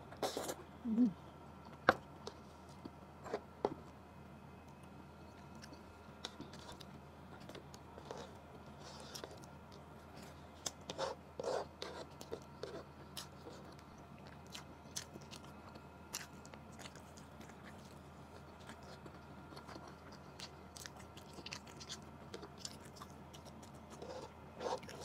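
Close-miked eating sounds: a mouthful of rice and adobo chicken eaten by hand being chewed, with scattered sharp mouth clicks. The loudest clicks come about one and two seconds in, and there is another cluster near the middle.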